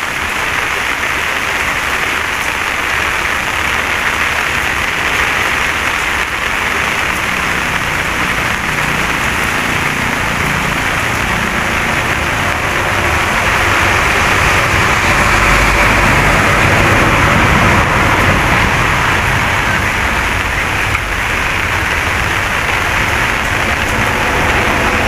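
Steady rain falling, an even hiss, with a low rumble that grows a little louder about halfway through.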